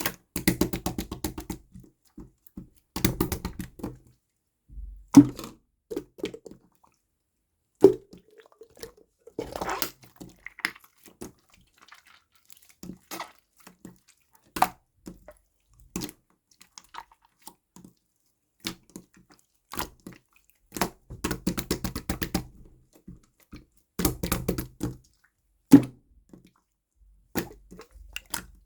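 Clear slime being squished and pressed by hand, making wet clicks and pops that come in quick runs of many at a time, with single pops in between.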